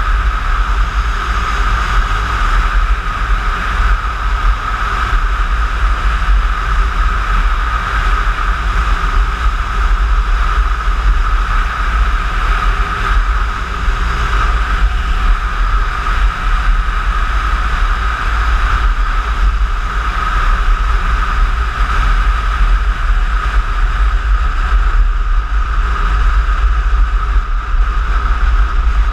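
Steady wind rumble on an action camera's microphone while riding a Piaggio X9 scooter, with the scooter's engine running underneath.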